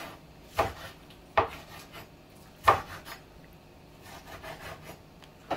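Kitchen knife chopping shallots on a wooden cutting board: a few separate, unevenly spaced knocks of the blade on the wood, the loudest about two and a half seconds in, with lighter tapping toward the end.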